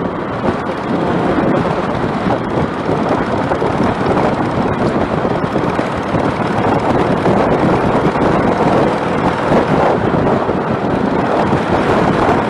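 Steady rush of wind over the microphone of a moving motorcycle, with the bike's running noise underneath.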